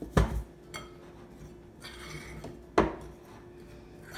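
A kitchen utensil knocking sharply against a mixing bowl twice, a little over two and a half seconds apart, with soft scraping in between as dry flour mix is stirred.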